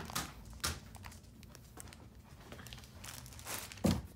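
Clear plastic bags crinkling as they are handled, in a few sharp rustles, with a louder thump near the end.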